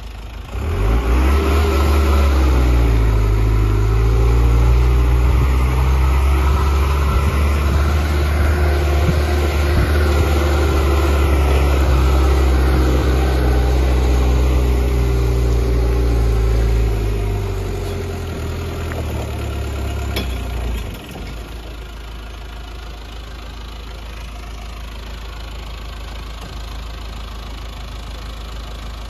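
Four-wheel-drive Dodge truck's engine working hard as the truck climbs a steep grassy orchard track. It comes up to full power about half a second in and holds there for about sixteen seconds. It eases off, then about twenty seconds in drops suddenly to a steady idle.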